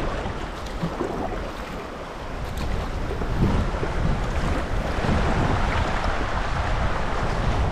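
Fast river water rushing through a choppy stretch around a kayak, growing louder a couple of seconds in, with wind rumbling on the microphone.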